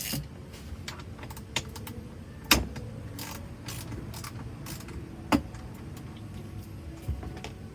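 A few scattered sharp clicks and small metallic knocks from parts and tools being handled on an Espar diesel heater, the loudest about two and a half and five seconds in, over a low steady hum.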